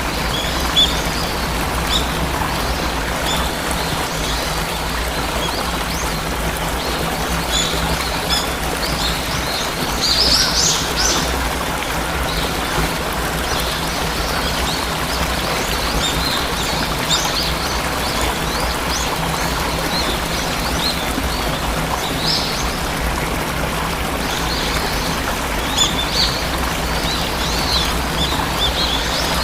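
Waterfall rushing steadily, with small birds chirping over it throughout and a brief flurry of chirps about ten seconds in.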